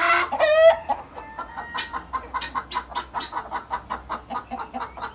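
Local (indigenous) chickens clucking: a couple of louder squawks in the first second, then an even run of short clucks at about six a second.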